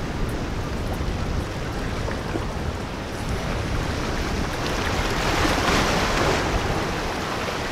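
Rough surf washing and breaking, with wind buffeting the microphone; a louder rush of breaking water swells about five to six seconds in.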